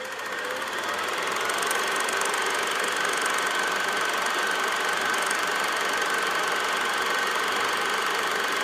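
Steady mechanical whirring and rattling with a constant high whine, used as a sound effect under the closing logo. It swells up over the first second, then holds steady.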